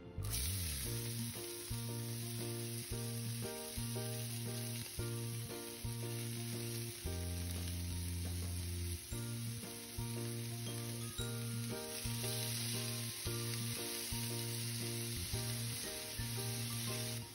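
Burdock root strips and chopped burdock leaves sizzling as they fry in sesame oil in a pan, a steady hiss that starts suddenly just after the start. Background music plays over it.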